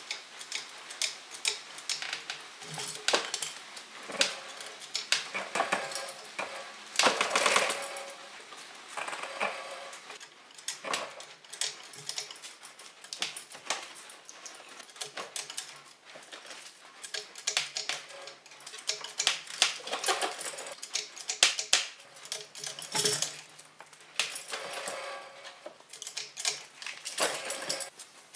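Irregular metallic clicking and clanking from hand work on an engine being lifted out of a car's engine bay on a shop crane and chain.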